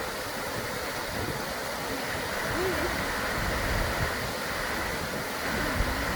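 Steady rush of flowing water from a river or waterfall, with wind buffeting the microphone.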